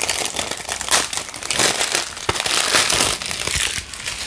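Clear plastic shrink-wrap being torn and peeled off a Blu-ray case: a run of crinkling and crackling plastic that dies away near the end.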